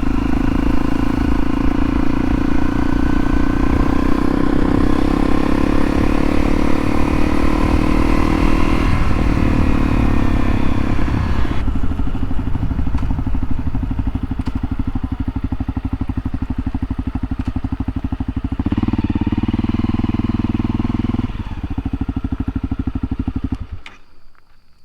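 2013 Honda CRF250L's single-cylinder four-stroke engine running while riding, its pitch rising in the first half, then settling to a lower, steadier note from about halfway with a short louder stretch; it falls away suddenly near the end.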